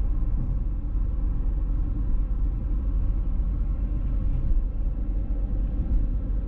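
2005 Jaguar S-Type's 3.0 V6 cruising at highway speed: a steady low rumble of engine, tyre and road noise.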